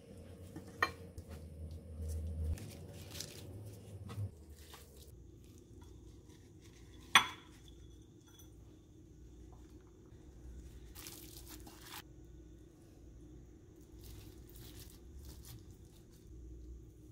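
Food handling in a kitchen: gloved hands placing mushrooms, glass noodles and marinated beef into a ceramic hot pot, with soft rustling and small knocks. A sharp clink of dishware, the loudest sound, about seven seconds in, and a smaller click about a second in, over a faint steady low hum.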